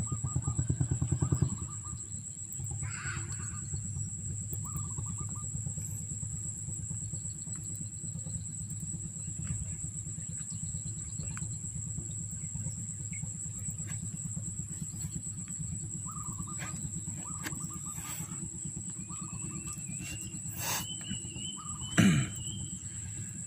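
Insects trilling steadily in one thin high tone over a constant low pulsing rumble, which is louder for the first second and a half. Short chirping calls come now and then, and there is a sharp knock about 22 seconds in.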